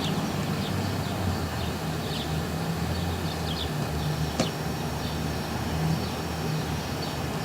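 Low, steady engine rumble with faint high chirps repeating about every half second, and a single sharp click about four and a half seconds in.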